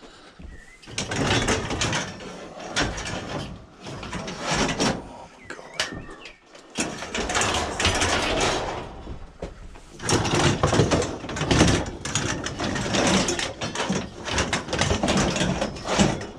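A metal barbecue being wrestled into a vehicle: repeated clanging knocks and scraping of metal against metal, getting louder and busier in the second half.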